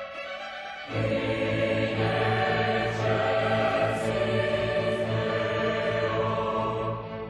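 Choir singing with a string orchestra, coming in loud about a second in after a softer passage and easing off near the end.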